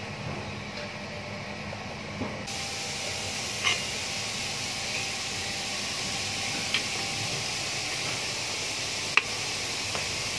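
A steady hiss that turns brighter about two and a half seconds in, with three short, sharp metallic clicks, the last the loudest, as a screwdriver pries at rear drum brake shoes and their return springs.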